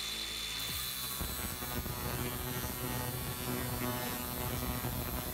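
Angle grinder with a thin cut-off wheel running at full speed with a steady high whine, cutting into stainless steel tubing that is filled with water and capped under pressure.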